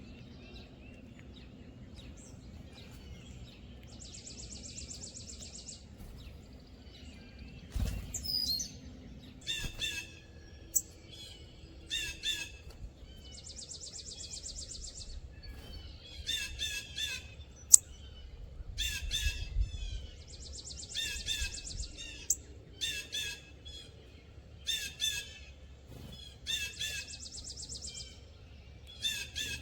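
Wild birds calling: short, harsh calls repeated every second or two, mixed with several buzzy, high trills about a second and a half long.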